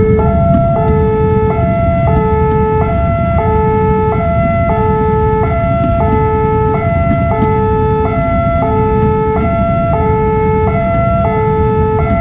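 Railway level-crossing warning alarm sounding an even two-note electronic tone, the notes alternating about every 0.7 s, which signals that a train is approaching and the barriers are down. A steady low rumble runs underneath.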